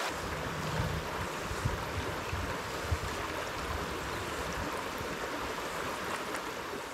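Small stream's water running over rocks: a steady rushing hiss, with an uneven low rumble mixed in.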